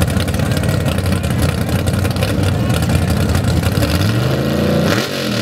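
Lifted 1970s Ford pickup mud truck's engine running loud and rough at the start line, then revved up and back down about four seconds in.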